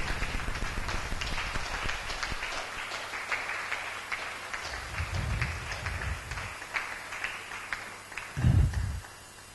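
Audience applauding, a dense patter of claps that thins out and dies away near the end. A low muffled bump comes midway and a louder one near the end.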